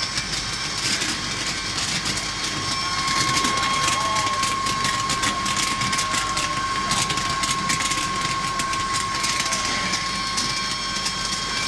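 Optical colour sorting machine for dried chili peppers running: a steady mechanical hum with a high, even whine, overlaid by rapid, irregular clicking as the peppers are fed through and sorted.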